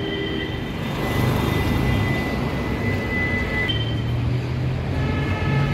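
Road traffic: passing vehicles' engines running, with a steady low engine hum from about a second in.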